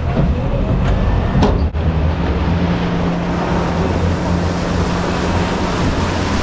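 Tour speedboat's Suzuki outboard motors running under way, a steady low engine drone under rushing wind and water noise. The drone settles onto a clearer steady hum about a second and a half in.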